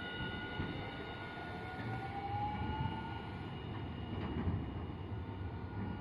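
Hiroshima Electric Railway 1000-series tram pulling away from a stop. The electric motor whine rises in pitch as it accelerates over the first few seconds, over a steady rumble of wheels on the rails.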